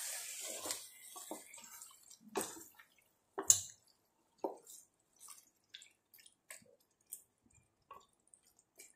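Spatula stirring raw chicken pieces through a thick, wet curd and masala marinade in a non-stick pot: irregular wet squelches and scrapes, with a sharper knock about three and a half seconds in.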